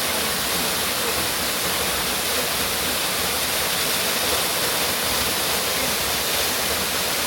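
Waterfall crashing into its pool, a steady, dense rush of falling water.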